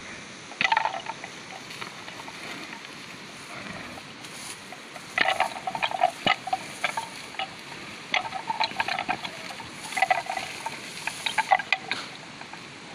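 Two young water buffalo fighting, their horns knocking and clacking together in short irregular bursts as they butt heads, with clusters of sharp clacks about a second in, around midway and again near the end.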